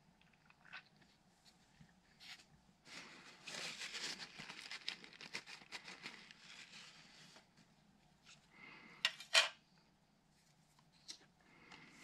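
Close hand work on a car's plastic window switch panel: a few seconds of scratching and rustling, then two sharp plastic clicks in quick succession near the end.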